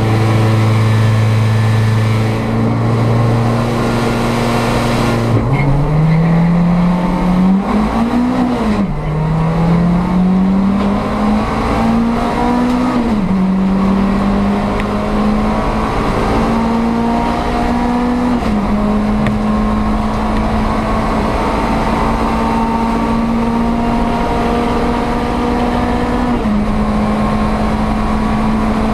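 A VW Polo 86C hillclimb race car's four-cylinder engine, heard from inside the stripped cabin. It is held at steady revs, then about five seconds in the car launches and the revs climb and fall through two quick upshifts. After that the engine runs on at high revs, with a couple more brief gear changes.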